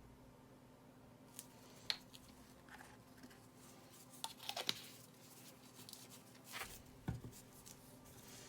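Scattered small clicks, taps and rustles of handling cups and tools at a work table while two-part epoxy resin is measured out and readied for mixing, starting about a second and a half in.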